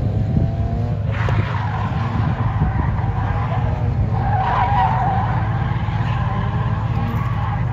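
Drifting car's tyres skidding and squealing on asphalt over its engine running at high revs, with the engine revving up at the start and a sharper squeal about four and a half seconds in.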